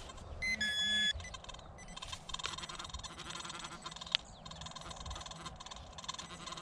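Metal detector giving a short electronic tone on a buried target, about half a second in, followed by lighter clicking and rustling.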